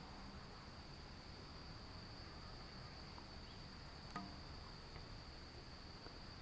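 Insect trilling: one steady, high-pitched, unbroken tone, faint, over a low rumble. A single sharp click about four seconds in.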